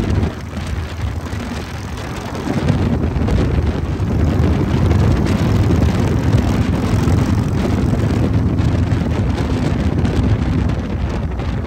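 Harley-Davidson Sturgis Shovelhead V-twin engine running as the motorcycle rides along the road, with wind noise on the microphone. It gets louder about two and a half seconds in.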